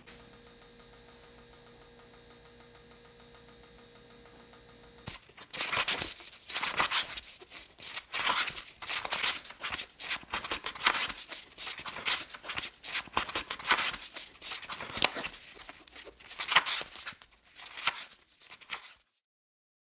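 Paper rustling as book pages are flipped, in irregular loud swishes from about five seconds in until near the end. Before that, a faint steady ticking.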